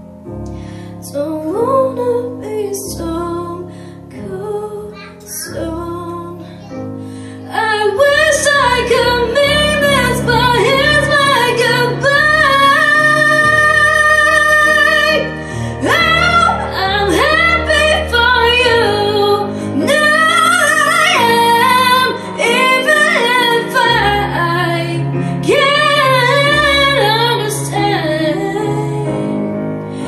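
A young woman singing a pop ballad live into a microphone over an instrumental accompaniment, starting softly and growing much louder and fuller about eight seconds in.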